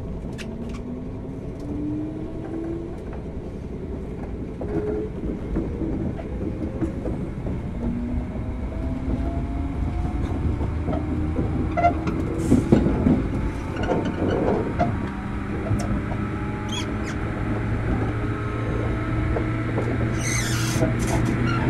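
Traction motors of a JR Kyushu 103 series electric train heard from inside the motor car, whining and rising in pitch as the train pulls away and accelerates. The wheel and rail rumble grows, with a few short crackles and squeals over it.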